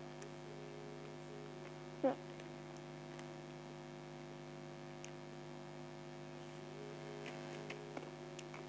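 Steady electrical mains hum with several overtones, picked up by the recording. About two seconds in comes a brief falling vocal sound, and a few faint clicks follow near the end.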